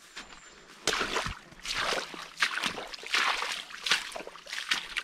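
Footsteps on a wet, muddy trail: boots squelching and splashing through shallow puddles, in a steady series of steps starting about a second in.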